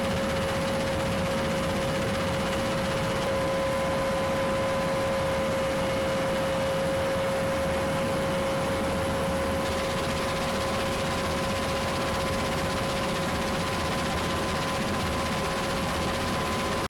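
Military aircraft engines running steadily: a broad, even roar with a constant whine held on one pitch.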